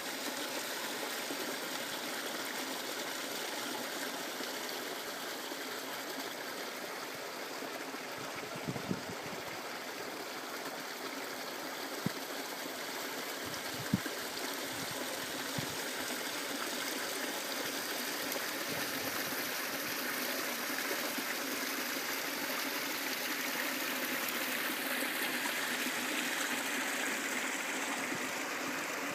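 Shallow water running and trickling over flat shale stones in a small channel draining the lowered pond, a steady rush that grows a little louder in the second half. A few brief thumps come in the middle.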